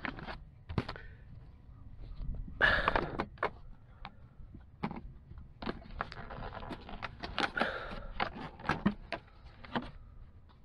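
Thin clear plastic clamshell container crackling and clicking as hands grip it and pull its lid open: a string of sharp clicks with louder bursts of crinkling about three seconds in and again between six and eight seconds.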